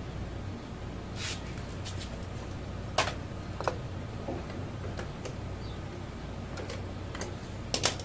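Scattered light clicks and taps of wires and terminal connectors being handled at a small refrigerator compressor, with a close pair of louder clicks near the end, over a steady low hum.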